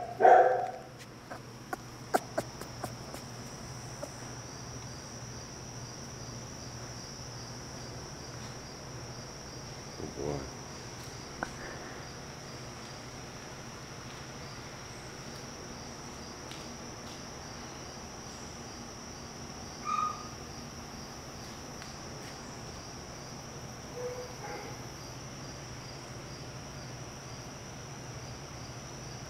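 Crickets chirring steadily and high-pitched throughout, with a puppy's sharp yelp right at the start.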